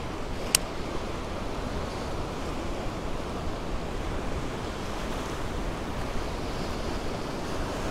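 Choppy sea water washing steadily around a wading angler, with one sharp click about half a second in.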